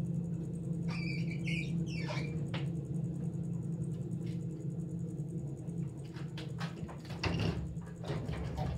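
A steady low hum from a small motor, with scattered clicks and scrapes over it, bunched about a second in and again in the last few seconds.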